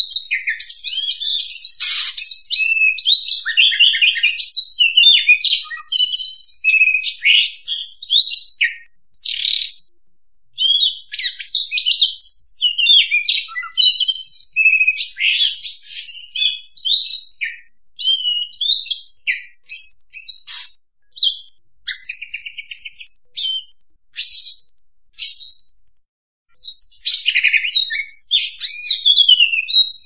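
Oriental magpie-robin singing a long, loud run of varied whistled and scratchy phrases, broken by a few short pauses. About three quarters of the way through comes a rapid buzzy trill.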